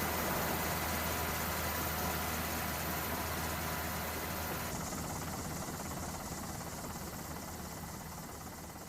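Steady mechanical drone with a low hum, a few thin steady tones and a rushing hiss; the high hiss drops away about five seconds in, and the sound fades out gradually.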